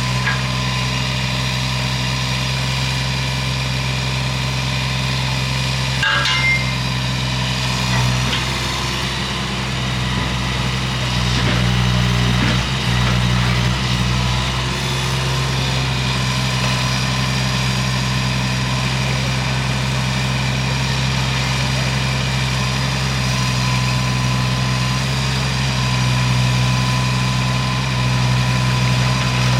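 An engine running steadily at constant speed, with a few light knocks about six seconds in and again around twelve seconds.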